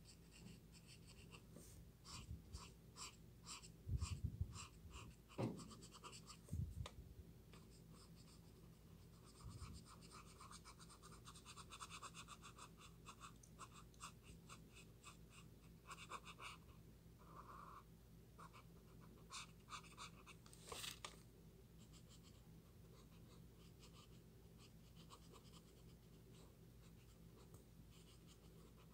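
Faint scratching of an alcohol marker's nib stroking across paper in runs of quick strokes, about three a second at times, as one gray is blended over another. A few soft low bumps come about four to seven seconds in, and the strokes thin out over the last several seconds.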